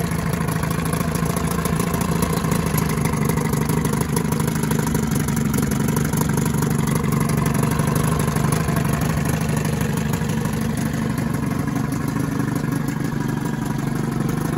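1979 Johnson 15 hp two-cylinder two-stroke outboard running steadily in a test tank, its pitch and level holding even throughout. It is running as it should: the non-starter is fixed.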